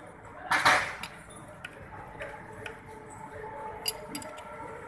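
Small metallic clinks and ticks from a ring spanner and hex key working the lock nut and adjusting screw of a rocker arm while the valve clearance is set. A short, louder rasp comes about half a second in.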